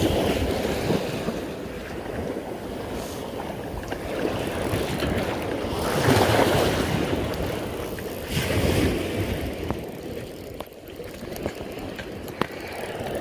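Water splashing and sloshing with wind rumbling on the microphone, swelling louder a few times.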